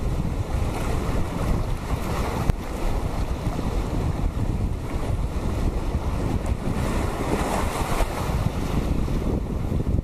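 Small ocean waves washing in over sand and around rocks, with wind buffeting the microphone in a steady low rumble.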